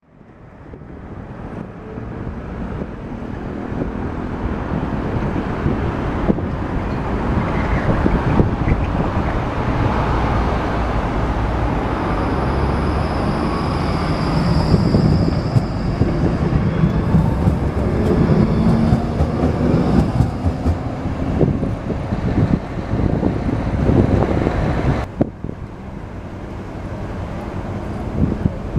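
Bombardier Cityrunner low-floor trams running on street track: a low rolling rumble of wheels and running gear that swells as a tram passes close by, with a high steady whine for a few seconds at its loudest, over city traffic. Near the end the sound drops suddenly, then builds again as another tram approaches.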